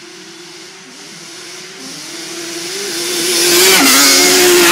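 Sport ATV engine accelerating hard toward the microphone, growing much louder over the last couple of seconds. Its note steps up and drops back as the rider shifts gears.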